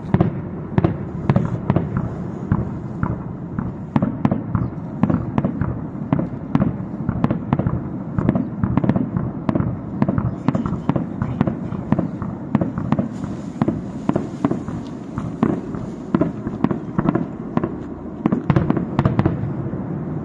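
Festive fireworks display: aerial shells bursting in a continuous barrage, several sharp bangs a second over a steady low rumble.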